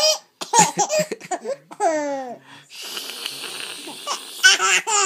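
Baby laughing in short bursts, then drawing a long, breathy gasping breath for about two seconds, and laughing again near the end. The gasping is put on in play while eating, not real choking.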